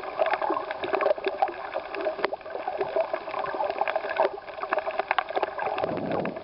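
Underwater sound picked up by a snorkeller's camera: water gurgling and sloshing around the camera, with many sharp clicks and crackles throughout.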